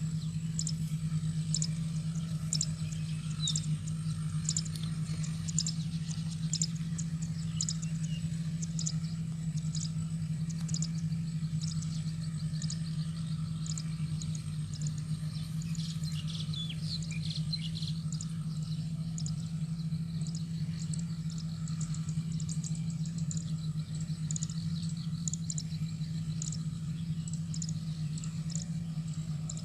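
Steady low drone of a rice combine harvester's engine running at work, with many short high bird chirps over it.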